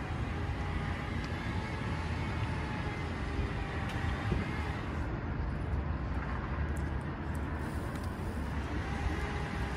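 Steady low rumble of vehicles with a faint steady whine over it.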